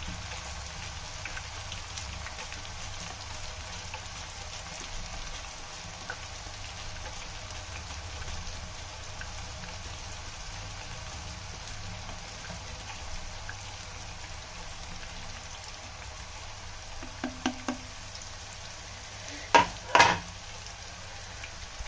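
Banana slices frying in a pan of hot oil, a steady sizzling crackle. A few light clicks come a little before the end, then two louder knocks close together near the end.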